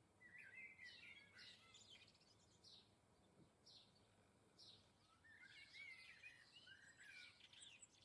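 Small garden songbirds calling, faint: a twittering song phrase in the first two seconds and again from about five seconds in, over single high chirps repeated roughly once a second.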